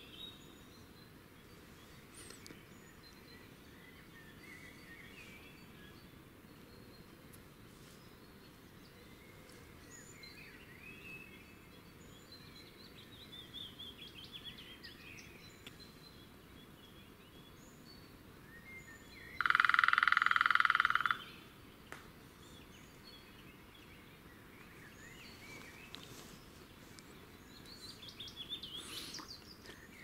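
Distant woodland birdsong: scattered chirps and short songs from small birds, including a run of notes falling in pitch about 13 seconds in and another near the end. About 20 seconds in, a loud steady high-pitched tone from an unidentified source cuts in for nearly two seconds and stops abruptly.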